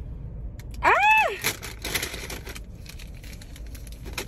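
A woman's short, high-pitched yelp about a second in, rising then falling in pitch, as she reacts to scalding her mouth on hot coffee. It is followed by about a second of hissing noise.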